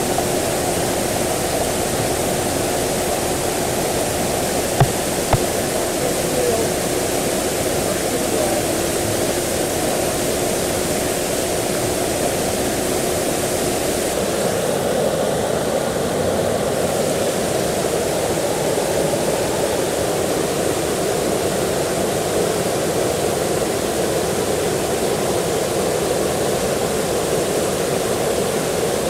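Floodwater rushing steadily across a road as a continuous rush of moving water. Two short knocks come about five seconds in, and a faint steady hum sounds underneath until about halfway, then stops.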